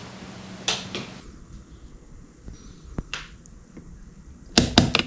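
Scattered single knocks and clicks, then a quick cluster of loud, sharp knocks and clatter near the end.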